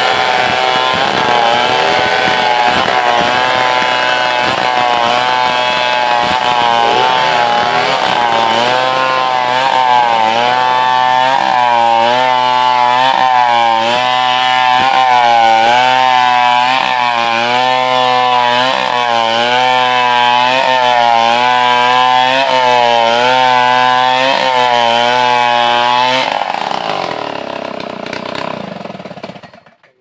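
Large two-stroke chainsaw (a 070) running at full throttle while cutting lengthwise along a big log. Its pitch dips and recovers in a steady rhythm, about once a second, as the chain is worked through the wood. The sound fades away over the last few seconds.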